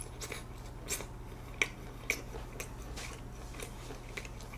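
Close-miked chewing of a mouthful of grilled pork rib meat, with irregular short wet clicks and smacks.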